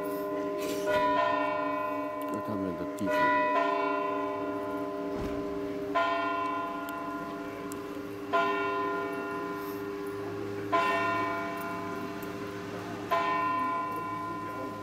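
A single church bell tolling slowly and steadily, struck about every two and a half seconds. Each stroke rings on with a hum that has not died away before the next one.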